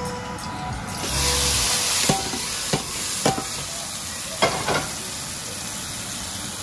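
Bhagaar, hot tempering oil with fried onions, garlic and dried red chillies, poured into a pot of yogurt and chickpea-flour curry. It sizzles hard about a second in, then settles to a steady crackle, with a few sharp clicks in the middle.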